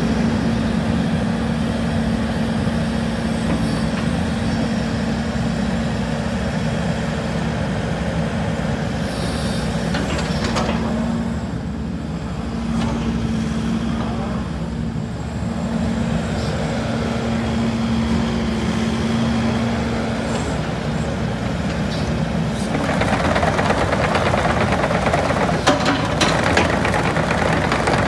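2015 Takeuchi TB290 excavator's diesel engine running steadily while the machine slews and works its boom. About two-thirds of the way through it gets louder and harsher, with a few clanks near the end.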